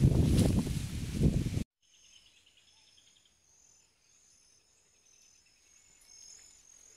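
A loud, low rustling rumble for about a second and a half that cuts off suddenly. It gives way to faint insects chirping in steady, high-pitched trills that pulse on and off.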